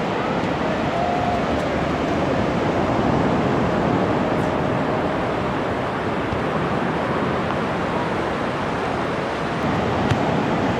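Atlantic Ocean surf breaking and washing in as a steady rushing noise, with a single small tap near the end.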